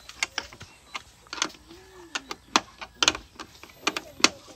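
A 10 mm wrench working a tail-light mounting bolt makes sharp, irregular metallic clicks and taps, about two or three a second.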